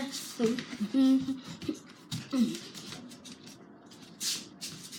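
Wordless vocal sounds and mouth noises from a person, in the first half, then a few short hissing sounds, the strongest about four seconds in.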